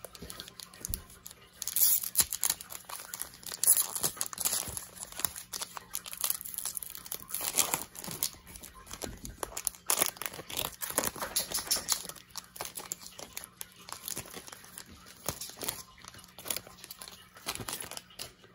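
Foil trading-card pack wrapper being torn open and crinkled by hand, in irregular flurries of crackling rustles that start about a second and a half in.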